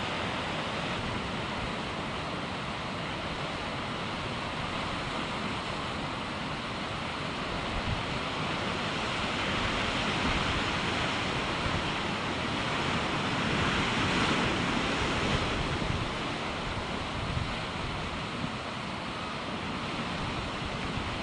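Sea surf breaking and washing over rocks: a steady hiss of foaming water that swells louder for several seconds around the middle.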